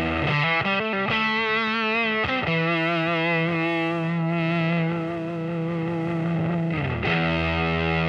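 Electric guitar played through the CA-108b compressor/fuzz pedal, heavily distorted and long-sustaining. A quick phrase with wide vibrato gives way to one long held note, which slides down about seven seconds in to a low held note.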